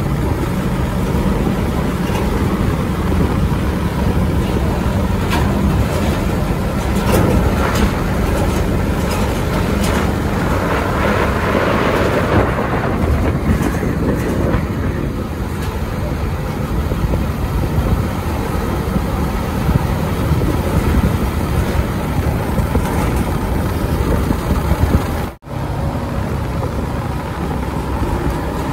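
Road traffic with heavy trucks' diesel engines running and passing in a steady rumble. The sound cuts out for an instant a few seconds before the end.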